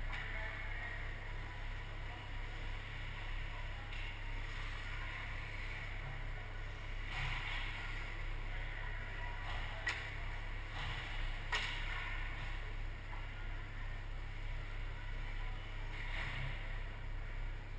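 Ice hockey rink ambience with play at the far end: a steady low hum, faint distant skating and voices, and two sharp knocks about ten and twelve seconds in.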